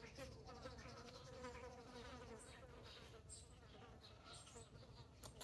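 Faint buzzing of a flying insect near the microphone, a wavering drone that fades after about two seconds.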